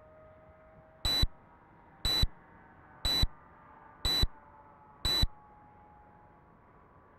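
Five short, high-pitched electronic beeps, evenly spaced one a second. In the first second a faint drone from the distant model airplane's nitro engine fades out under them.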